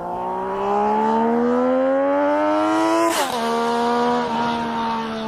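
Motorcycle engine pulling hard, its pitch climbing steadily for about three seconds, then dropping sharply with a brief rush of noise and holding lower as it runs on.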